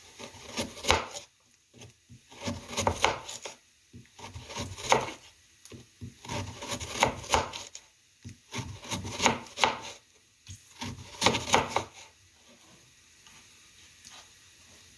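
Kitchen knife slicing a raw carrot on a wooden cutting board: groups of sharp cuts with the blade knocking the board, stopping about twelve seconds in.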